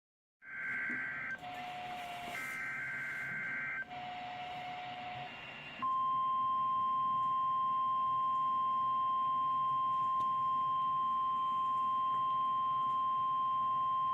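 An Emergency Alert System weekly test signal off NOAA Weather Radio. It opens with two short, buzzy bursts of SAME digital header data, each followed by a lower steady tone. Then the 1050 Hz NOAA Weather Radio warning alarm tone sounds steadily for about nine seconds.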